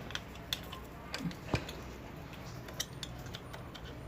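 A few sharp, separate metallic clinks and taps: tools or small metal parts being handled during a motorcycle repair.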